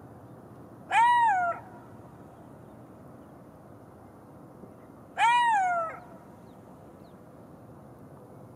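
Golden jackal howling: two short calls about four seconds apart, each under a second long, rising and then falling in pitch.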